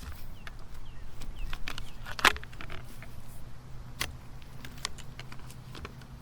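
Dry sticks and brush crackling and snapping as they are handled and walked through, with a loud sharp snap about two seconds in and another about four seconds in.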